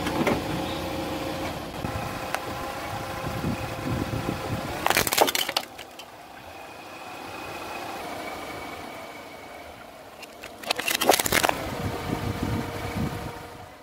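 Car running at low speed while its tyre rolls over plastic drinking straws, crushing them in a short, sharp crackling burst about five seconds in. A second crunching, cracking burst comes about eleven seconds in as the tyre goes over a black plastic piece.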